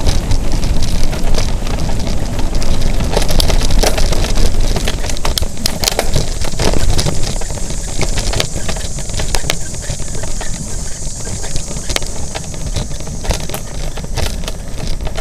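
Mountain bike ridden fast along dirt singletrack: wind rumbling on the camera's microphone, with the bike rattling and clicking over bumps in the trail.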